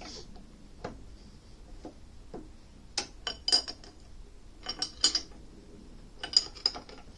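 Metal tools and parts being handled at a lathe, clinking and clicking against each other with a bright metallic ring, in three short clusters.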